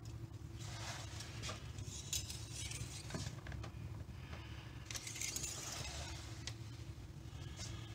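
Engine-oil dipstick being drawn out of its metal tube, handled and slid back in: a few soft scrapes and rustles over a steady low hum.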